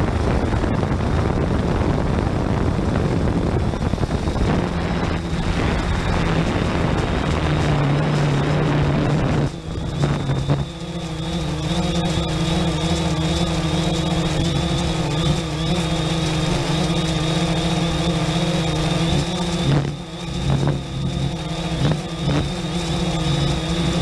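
3DR Solo quadcopter's motors and propellers buzzing in flight. For about the first ten seconds a heavy rush of wind and air covers a low steady hum. After that the hum comes through clearly, holding a steady pitch, with a couple of brief dips near the end.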